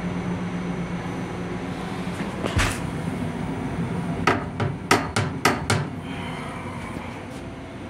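Plastic toilet lid and seat of an M7 railcar restroom knocking as they are handled and lowered: one sharp knock about two and a half seconds in, then a quick run of five or six knocks between four and six seconds. A steady low hum of the railcar runs underneath.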